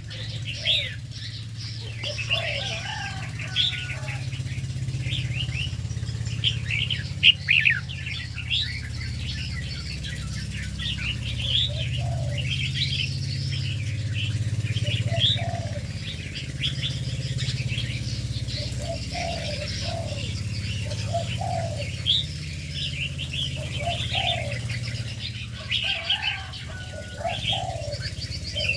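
A mix of aviary birds calling: many quick high chirps overlapping throughout, with scattered lower calls in between, over a steady low hum.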